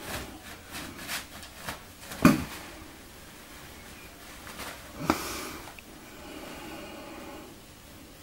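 Kittens pouncing and scrabbling in loose toilet paper: quick rustles of paper in the first two seconds, a loud thump a little over two seconds in, and another sharp knock about five seconds in.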